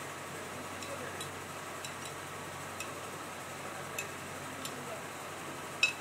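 Light metallic ticks every second or so, with a sharper click near the end, as a wrench tightens the nut that clamps sprockets in a steel drilling jig. A steady workshop hum runs underneath.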